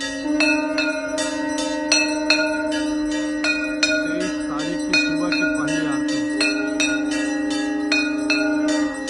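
Temple bells rung rapidly and without pause during an aarti, several strikes a second with ringing overtones, over a long steady low note that stops just before the end.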